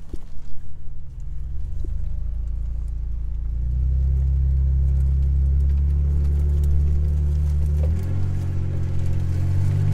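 Jeep Wrangler engine pulling under load in four-wheel drive through deep mud, its note rising and getting louder about four seconds in and then holding steady. Scattered knocks in the first couple of seconds.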